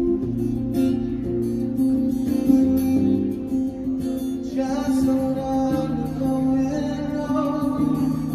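A man singing while strumming an acoustic guitar in a steady rhythm.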